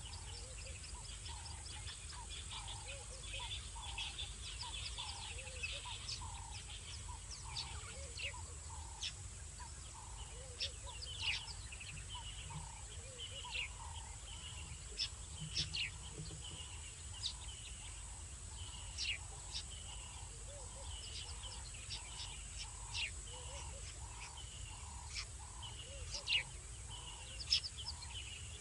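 Night bush ambience: a constant high insect drone, scattered chirps and quick falling whistles from calling birds or insects, and a soft low note repeated steadily about every half second.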